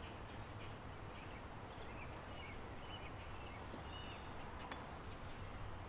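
Faint bird chirps, short high calls repeated a few times, over a steady low outdoor rumble, with a couple of faint clicks near the middle.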